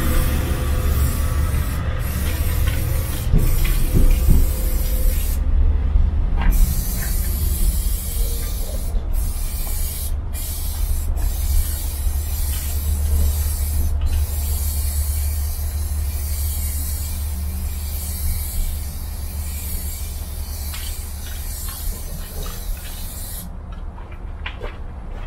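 Aerosol spray paint can hissing as paint is sprayed onto a freight wagon in long continuous strokes, with a short break about six seconds in and another near the end. A steady low rumble runs underneath.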